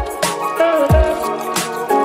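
Background music with a steady beat: a deep kick drum about once a second, with sharp snare and cymbal hits under a held melody.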